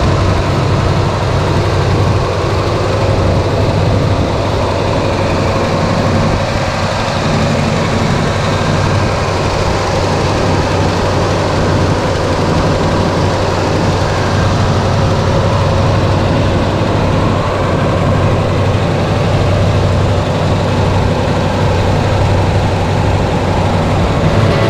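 Car engine idling steadily, with no revving.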